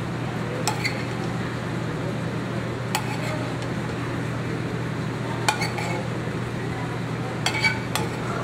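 Metal spoon clinking and scraping against a stainless sauté pan as sauce is spooned out onto a plate: a few sharp clinks spread out, with a quick run of them near the end. A steady low hum sits underneath.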